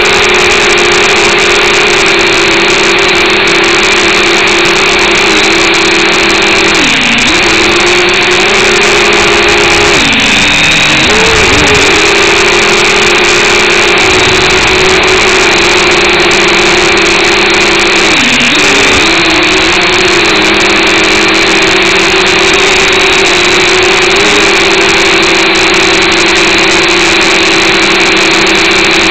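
The motors and propellers of an Eachine H8C mini quadcopter whine steadily, heard up close from its onboard camera. The pitch dips briefly several times as the motors slow and speed up, most deeply about ten seconds in.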